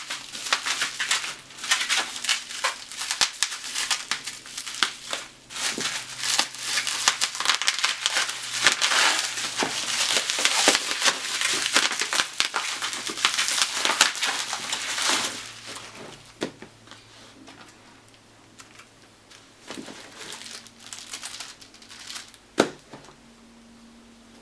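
Plastic packaging crinkling and rustling as it is handled and pulled off, dense for about fifteen seconds, then fading to a few scattered clicks with one sharp click near the end.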